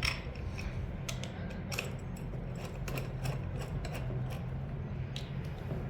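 Scattered small metal clicks and taps as bolts are entered by hand to fix a brush cutter engine to its shaft, over a steady low hum.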